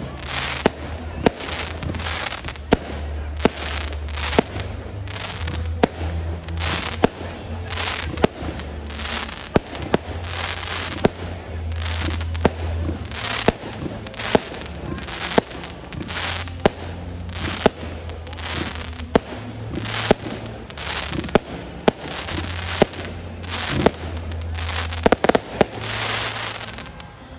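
Fireworks display: aerial shells bursting in a steady series of sharp bangs, about one or two a second, with crackling between them, over a steady low rumble.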